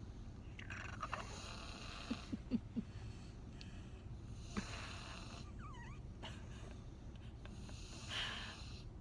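Snoring inside a car: long raspy breaths, three of them a few seconds apart, with a cluster of short snorts between the first two, over a steady low rumble.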